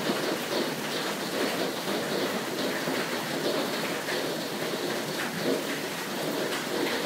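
Hail pelting down in a dense, steady clatter of countless small impacts on surfaces.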